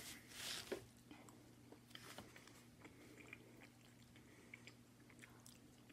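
Faint chewing of a mouthful of mac and cheese, with scattered small soft mouth clicks.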